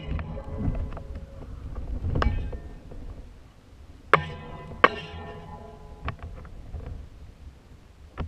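Sharp knocks and clicks on a high-altitude balloon payload, several of them followed by a brief ringing tone, over a low rumble. The two loudest come about four and five seconds in.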